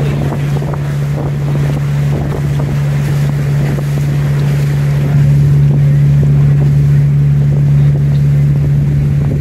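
A tour boat's engine drones steadily with a constant low hum, over wind buffeting the microphone and the rush of water. It gets a little louder about halfway through.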